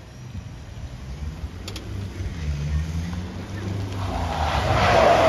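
A car's engine rising and falling in pitch as it accelerates and eases off, then growing tyre hiss on wet tarmac as a car drives past close by near the end.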